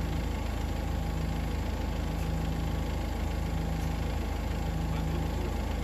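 Tractor engine idling steadily with a low rumble.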